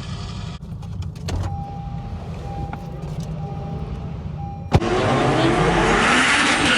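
Car engine running with a low rumble, with a faint on-and-off high beep. About three-quarters of the way through, after a sharp click, it jumps to louder engine and track noise with a pitch that climbs.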